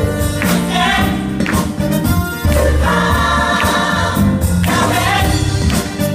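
Gospel choir singing over band accompaniment with a steady beat.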